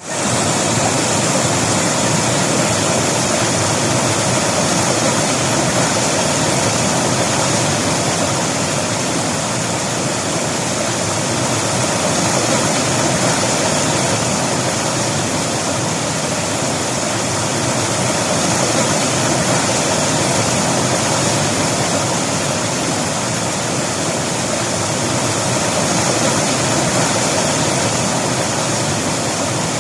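River water rushing and splashing over rocks, a steady full rush of flowing water.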